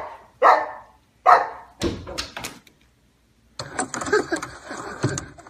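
Boxer dog barking a few times in quick succession, each bark short and dying away, followed by a few quick knocks. About three and a half seconds in, a steady rustling noise takes over.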